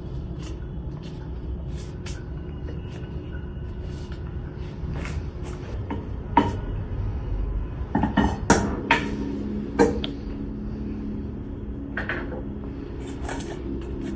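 Kitchen clatter: scattered clicks and knocks of cookware and utensils, loudest in a cluster of knocks around the middle, over a steady low rumble.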